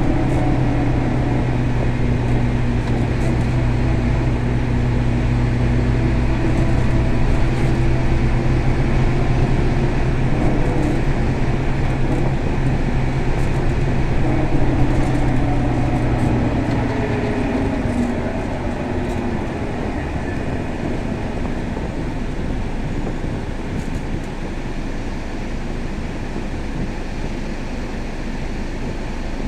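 Scania K320 bus heard from inside the cabin: the engine hums steadily at an even pitch, then fades about two-thirds of the way through, leaving a broad cabin rumble.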